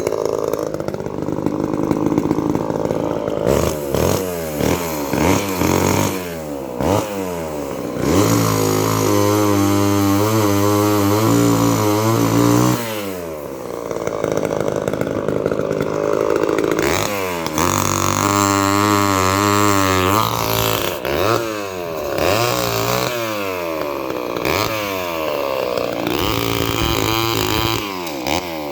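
Old two-stroke gasoline chainsaw running, revved up and dropped back again and again. Twice it is held at a steady high pitch for a few seconds.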